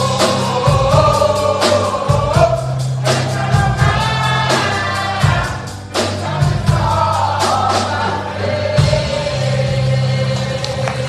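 Gospel choir singing with a band: sustained low bass or organ notes under the voices and regular drum strokes keeping the beat.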